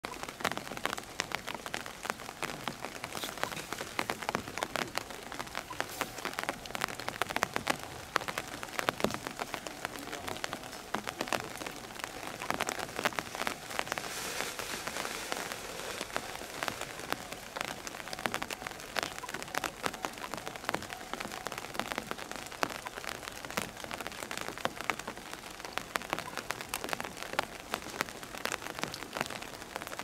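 Steady rain falling, with many sharp individual drop hits close by.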